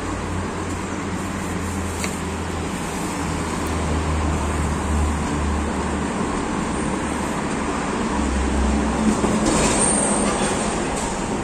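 Steady urban background at a railway station: a continuous low hum over road-traffic noise, swelling slightly about nine seconds in.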